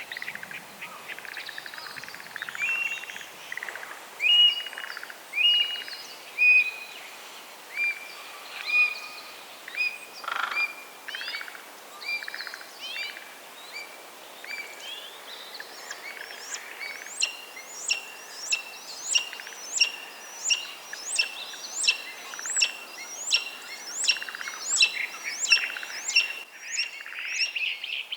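Eastern buzzards giving courtship calls: spaced, drawn-out mewing whistles, then about halfway a fast, even series of sharp calls, a little more than one a second.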